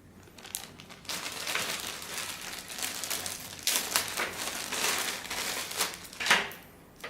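Plastic packaging bags crinkling and rustling as small accessories are handled and unwrapped, unevenly for about five seconds, with one sharper crackle near the end.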